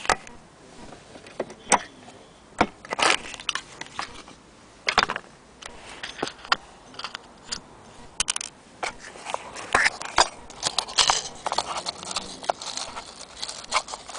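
Handling noise: irregular clicks, knocks and small metallic rattles as hands handle a portable wind-up gramophone and a small metal tin. The rattles come thicker in the second half.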